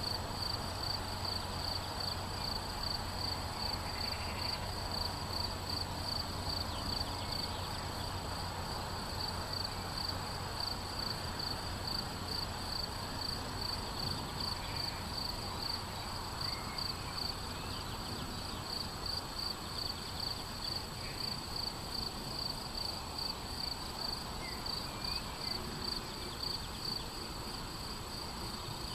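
A cricket in the meadow chirping steadily in a fast, even rhythm of high pulses, over a low outdoor rumble, with a few faint bird calls.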